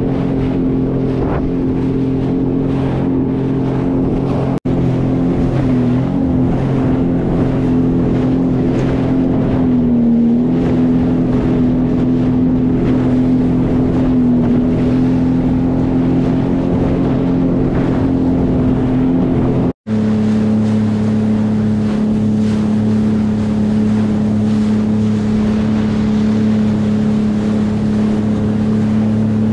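2020 Sea-Doo Fish Pro personal watercraft's Rotax 1630 ACE three-cylinder engine running at a steady cruising pace, with the hiss of water and wind over it. The sound breaks off abruptly twice, about 5 and 20 seconds in, and after the second break the engine runs at a slightly lower, steadier pitch.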